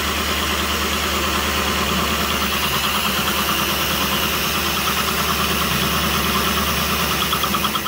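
Vertical milling machine running, its end mill cutting along the edge of a metal bracket held in a vise, with a coolant mist nozzle spraying the cut. The sound is a steady machining noise with a fine, even pulse.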